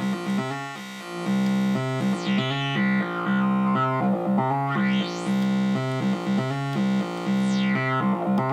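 Roland JP-680 software synthesizer playing a repeated rhythmic pattern of chords over a bass note. A bright resonant sweep glides down, then up, then down again across the notes.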